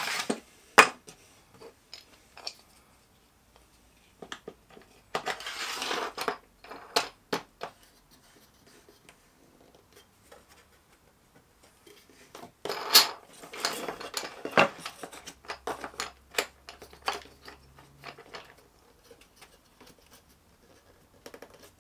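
Homemade plywood clamps with plastic star knobs and T-bolts being slid along and set in metal T-tracks on a workbench: scattered clicks and knocks of wood and metal. There is a sharp click about a second in, then two spells of scraping and clatter around six seconds and again around thirteen to fifteen seconds.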